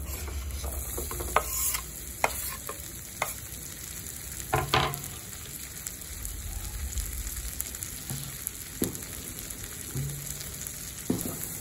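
Chopped onions sizzling as they drop into hot oil and butter in a pan, with a knife scraping the last pieces off a wooden chopping board. A few short knocks of knife and board against the pan break the steady sizzle.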